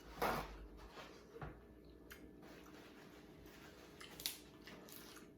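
Quiet eating and food-handling noises while eating seafood: a short rustle at the start, then a few scattered soft clicks and taps, over a faint steady hum.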